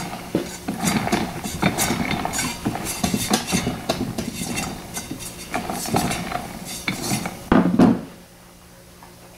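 Tecumseh Peerless riding-mower transaxle turned by hand at its input pulley, the gears inside clicking and rattling as they turn. A heavier clunk comes near the end.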